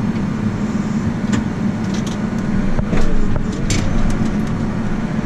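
Tractor engine running steadily while pulling a full grain cart, with a few sharp clicks and rattles.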